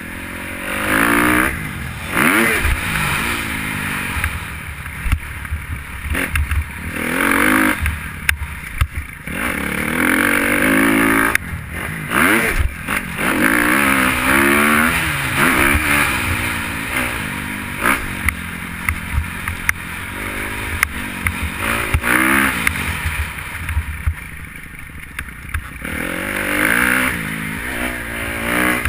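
Kawasaki KX250F four-stroke single-cylinder motocross engine on a dirt-track lap, revving up hard and dropping off again over and over as the rider works through the gears, with scattered knocks from the bike over the bumps.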